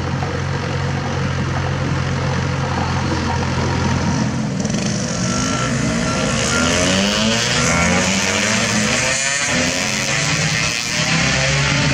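Heavy diesel engine running steadily, then, from about four seconds in, a Mitsubishi dump truck's diesel engine revving up and down under heavy load as the truck struggles, stuck in soft dirt.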